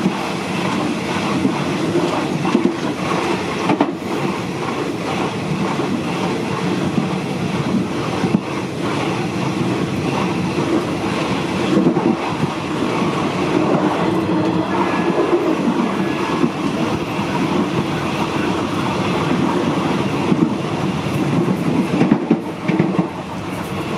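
State Railway of Thailand train running along the track: a steady rumble and rattle of the carriage and its wheels on the rails, with a few sharp clicks now and then.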